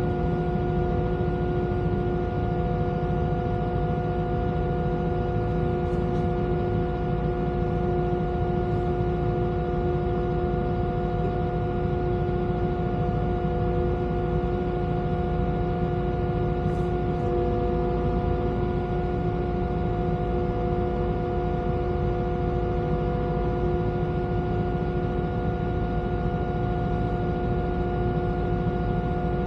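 Volvo EWR150E wheeled excavator running at a steady speed: a constant engine hum with steady whining tones on top.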